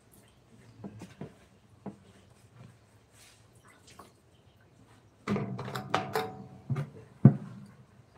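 Scattered light clicks, then a burst of clattering knocks about five seconds in, as hard objects are handled and set down, with one sharp knock near the end.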